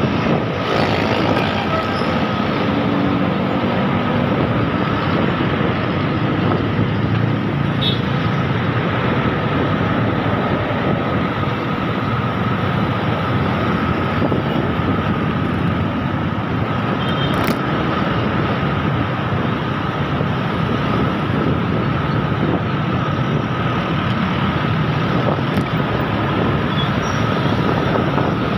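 Steady wind rush with engine and road noise from a motorcycle riding through city traffic, and a steady high whine under it.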